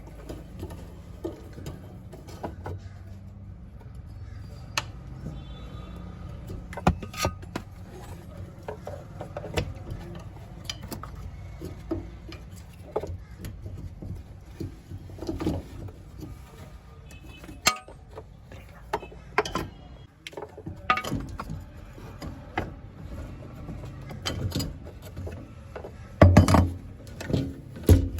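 Metal hand tools clinking and knocking against car parts at irregular intervals, over a steady low hum. A cluster of louder knocks comes near the end.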